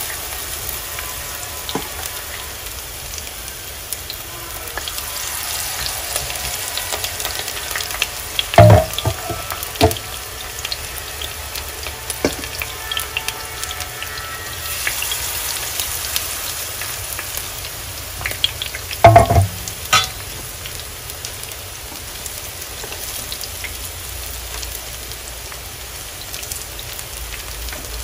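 Battered small-shrimp fritters sizzling steadily as they shallow-fry in hot oil in a pan. Two clusters of loud, sharp knocks break in, about a third of the way in and again about two-thirds in.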